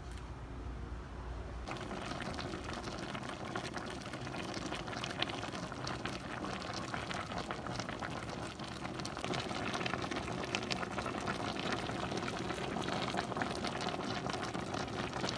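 A pot of soup bubbling on the boil, thickened with lumps of cocoyam paste for oha soup. The dense popping and crackling starts about two seconds in and grows a little louder in the second half.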